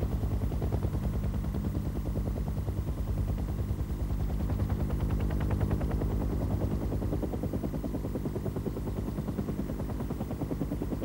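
Helicopter rotor blades chopping in a fast, even rhythm over a steady engine drone, a little louder about halfway through.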